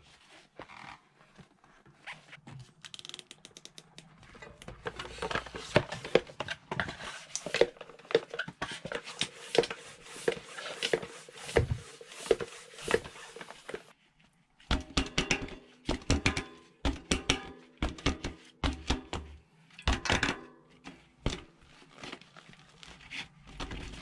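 Hand bicycle pump being worked hard in quick strokes, about two a second, each pushing a rush of air into a tubeless-ready mountain bike tyre to seat its bead on the rim. The pumping stops briefly about two-thirds through, then goes on with a faint squeak.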